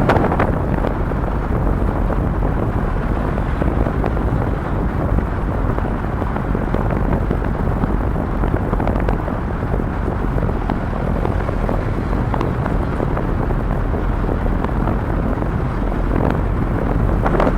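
Strong wind buffeting the microphone: a steady, dense rush of noise with a constant low rumble.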